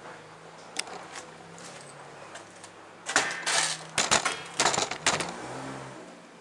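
Clattering clicks and short rattles of things being handled and moved, a couple of faint ones early and a dense run from about three to five seconds in, over a faint steady hum.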